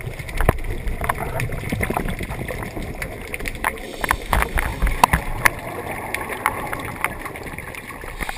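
Underwater sound picked up by a camera in its housing: a low rumble of water moving against it, with scattered sharp clicks and knocks throughout.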